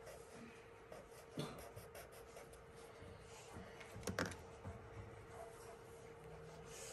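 Faint strokes of a black felt-tip marker on paper, over a steady low hum, with a couple of soft knocks about a second and a half and four seconds in.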